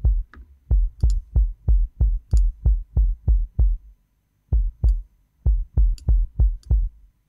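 Sampled kick drum played on its own, detuned two steps and tightly gated, so each hit is a short punchy thud that dies away at once. Steady hits about three a second with a brief pause about four seconds in, and a few faint high ticks here and there.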